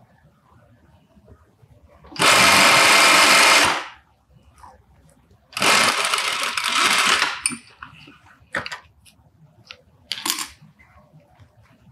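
Industrial straight-stitch sewing machine running in two bursts of about a second and a half each as it sews the two layers of a pocket bag, followed by a few short sharp clicks and snips as the threads are trimmed with scissors.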